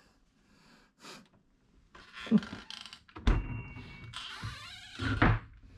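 A minibar fridge being shut, with a few thuds and knocks. The loudest comes about three seconds in and is followed by a short glassy ring as the bottles in the door clink.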